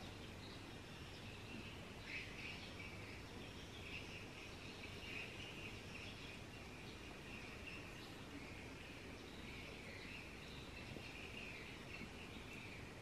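Faint background ambience: a steady low noise with light, broken high chirping running through it.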